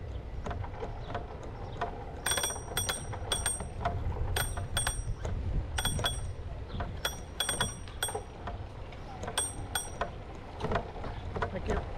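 Bicycle bell dinging over and over in quick pairs of strikes, each one ringing briefly at the same high pitches, over a steady low rumble of the ride.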